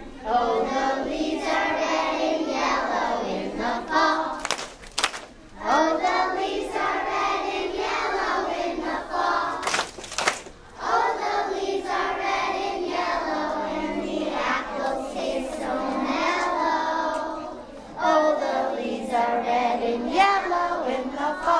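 Children's voices singing a song together in long held phrases, with short breaks between lines and a few sharp claps during two of the breaks.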